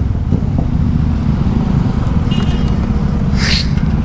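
Motorcycle engine and exhaust running steadily while riding, a dense low pulsing rumble.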